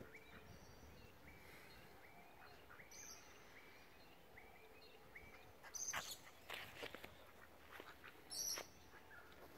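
Faint outdoor ambience with small birds chirping over and over, and a few louder, sharp high chirps about three, six and eight and a half seconds in.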